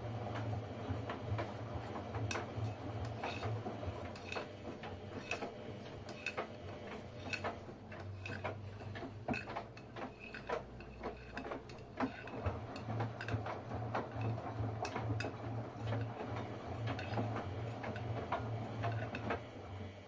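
Three LG front-loading washing machines mid-wash: the drum motors hum and the wet laundry churns, with frequent small clicks and knocks as the load tumbles.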